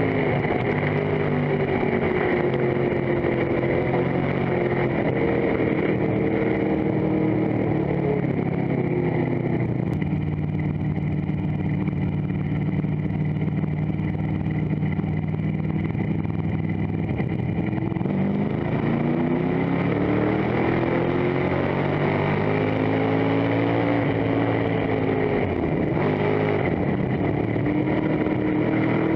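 Dirt-track race car engine heard from inside the cockpit under racing load. Its pitch drops several times as the revs come down and then climbs again, in a lap-by-lap cycle.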